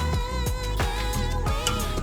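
Background music: a sung melody over a beat with regular drum hits and low gliding bass notes.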